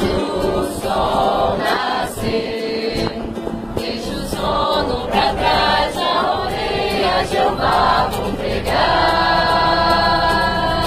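A group of men and women singing a religious song together, accompanied by a strummed acoustic guitar.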